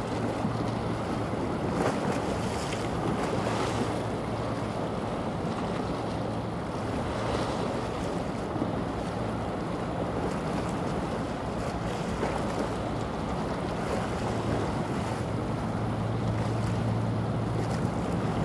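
Steady low drone of a large general cargo ship's engine heard across the water, growing stronger near the end as the ship's aft superstructure comes past. Wind rushes on the microphone over the wash of water along the hull.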